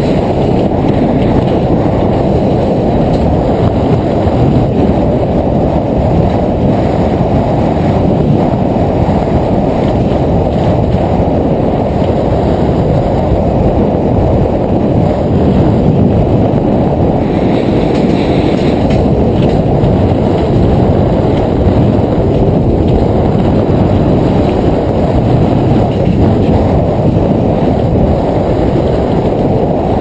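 Steady, loud rushing rumble of a gravity-run bobsled coaster speeding down its tubular steel rails, with wind buffeting the microphone.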